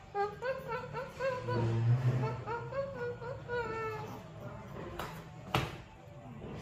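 A puppy whimpering in quick short whines, several a second, each rising and falling in pitch, through the first four seconds. Two sharp knocks come about five seconds in.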